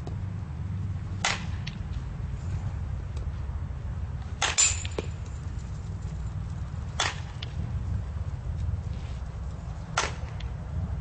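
Softball bat hitting tossed softballs: four sharp cracks about three seconds apart, the one in the middle the loudest, with a brief high metallic ring.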